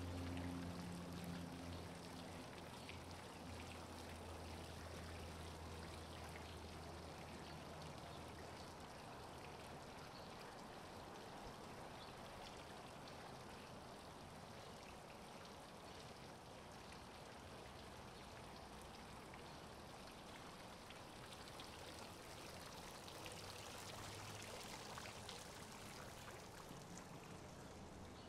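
Steady, quiet outdoor rushing noise like running water. A low hum fades out over the first several seconds.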